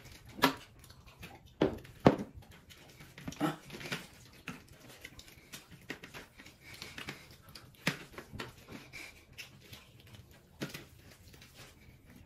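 Two people eating rice and chicken curry with their bare hands: wet chewing and mouth sounds, and fingers squishing rice against steel platters, in scattered short sounds with a few louder smacks.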